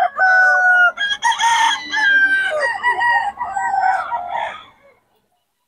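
Several gamecocks crowing, long drawn-out crows overlapping one another. The sound dies away about five seconds in.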